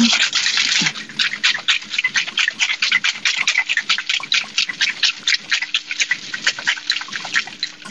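Ice rattling hard inside a metal cocktail shaker being shaken: a fast, even clatter of about five strokes a second as the cocktail is chilled and mixed.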